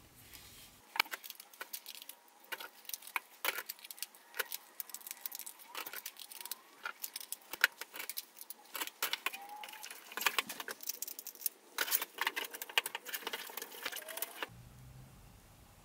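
Bachmann E-Z Track sections, plastic roadbed with metal rails, clicking and clattering as they are handled and snapped together into an oval. It is an irregular run of sharp clicks that grows busier toward the end, then stops a little over a second before the end.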